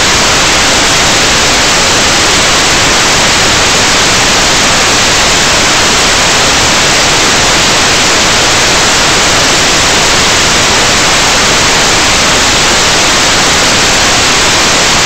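Loud, steady static hiss from an analog FPV video receiver that has lost the drone's video signal.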